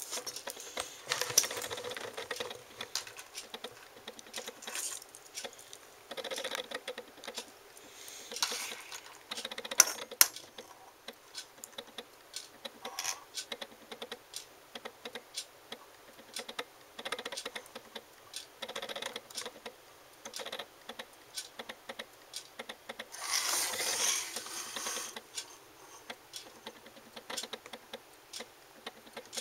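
Irregular light clicks and rubbing noises from handling a wristwatch with a metal bracelet, with a few louder rustling stretches, the longest near the end.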